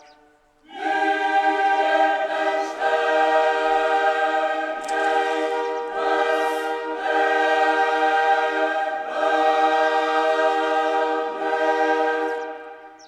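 A choir sings slow, sustained chords. It enters after a brief gap about a second in, moves between long held phrases, and fades out near the end.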